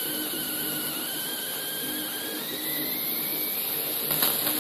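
Oxyhydrogen torch burning as a steady jet: a hiss with a wavering high whistle that drifts up and down in pitch. A short click comes near the end.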